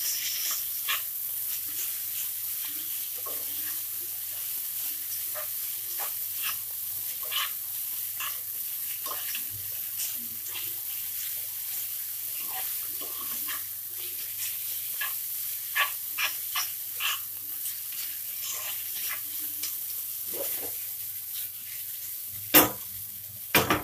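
Hakka noodles and vegetables being tossed and mixed in a hot nonstick pan with two plastic spoons. A steady sizzle runs with frequent soft scrapes and clicks of the spoons against the pan, and a couple of sharper knocks come near the end.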